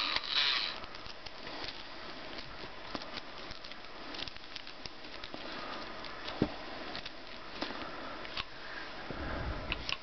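Hands handling a plush animatronic toy parrot: rustling of its synthetic fur and light clicks of its plastic parts, with a sharper click about six and a half seconds in and a low bump near the end as it is set down on the table.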